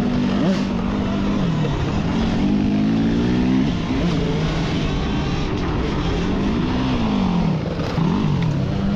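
Dirt bikes racing off-road: engine pitch rising and falling again and again as the throttle is opened and closed, over a steady rush of noise.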